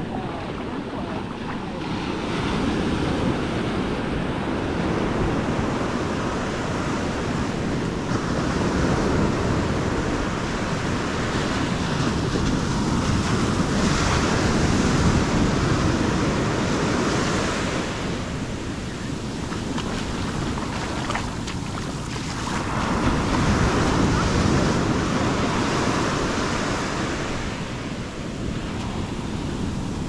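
Ocean surf breaking and washing up a sandy beach, a continuous rushing wash that swells and eases every several seconds as waves come in. Wind buffets the microphone with a steady low rumble underneath.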